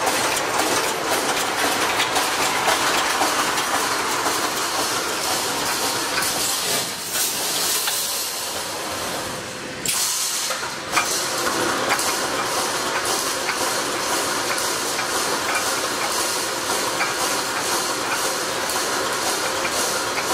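Reinforcing wire mesh panel welding machine running at speed: a steady mechanical clatter with a regular series of sharp clicks as it cycles, and a hiss mixed in.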